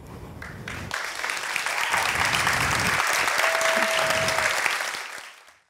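Audience applauding at the close of a live performance. The clapping builds over about the first second, holds steady, then fades out near the end.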